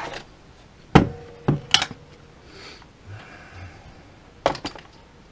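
Small hard knocks and clicks of plastic parts handled in a cardboard box with a pulp-fibre tray: one sharp knock about a second in, two more soon after, and a quick cluster near the end, with faint rustling between.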